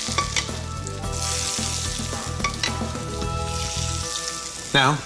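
Hot olive oil sizzling in a frying pan, the hiss swelling and easing in waves.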